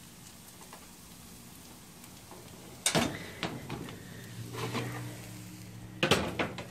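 Oven door and baking sheet being handled: a sharp loud knock about three seconds in, a few lighter clatters, and another loud knock near the end as the oven door is shut. A low steady hum starts in the middle.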